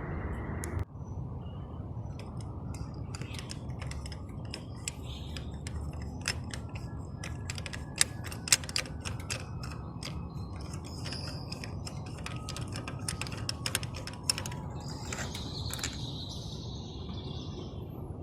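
A run of light clicks and mechanical clatter, with two sharper clicks about eight seconds in, over a steady low hum.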